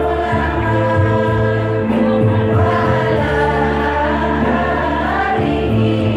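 Women's choir singing together into microphones, over sustained accompaniment notes with a low bass line that changes note near the start and again near the end.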